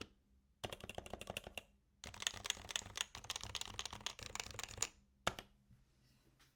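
Typing on a 2014 HHKB Professional 2 Topre keyboard with aged rubber domes: bursts of quick keystrokes, a short flurry then a longer run of several seconds, with pauses between, ending on a single keystroke.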